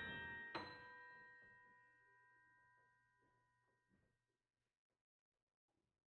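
Piano's final notes ringing out: a last high note struck about half a second in, then fading away to silence within about three seconds.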